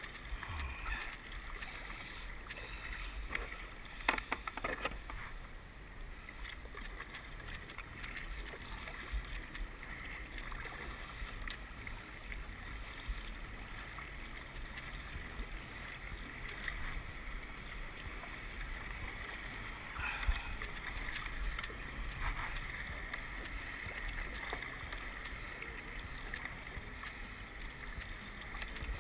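A kayak paddle splashing and water sloshing against a sit-on-top kayak's hull, over steady wind noise. A couple of louder splashes stand out, one about four seconds in and one about twenty seconds in.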